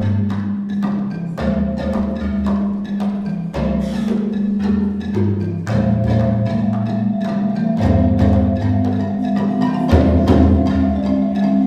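A marimba ensemble playing: several wooden marimbas struck with mallets in a quick, repeating pattern over low bass notes that change every second or so, with djembe hand drums.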